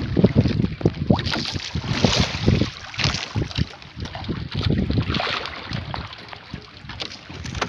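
Wind buffeting the microphone over water lapping against a small outrigger fishing boat, with many irregular low thumps.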